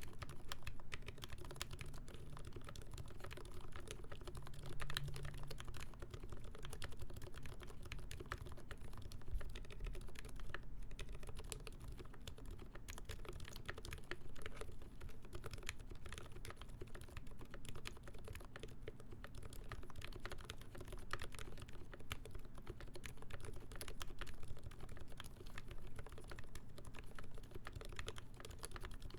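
Continuous typing on a mechanical keyboard: Krytox 205g0-lubed ZealPC Roselios tactile switches under GMK doubleshot keycaps on a full brass plate, giving a dense, irregular patter of keystrokes.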